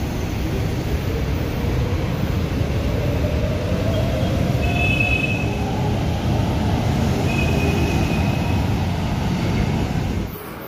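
São Paulo Metro Line 3-Red K-series train running past the platform and picking up speed: a loud rumble of wheels on rail under a motor whine that rises in pitch, with two short high squeals. The noise falls away suddenly about ten seconds in.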